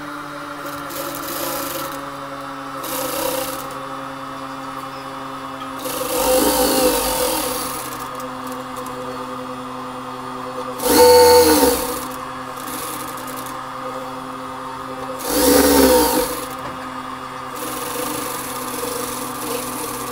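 Industrial sewing machine stitching a seam in short runs: its motor hums steadily, and the stitching swells louder in three main runs, about six, eleven and fifteen seconds in, each rising and falling in pitch, with shorter, softer runs between.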